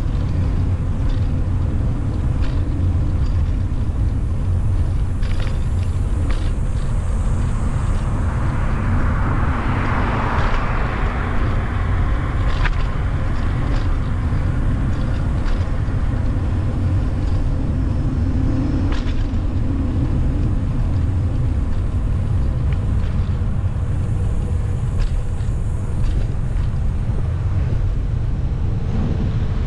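Steady low rumble of wind and road noise from a moving bicycle on a city street with traffic; a vehicle swells past about a third of the way in, and a few light clicks sound along the way.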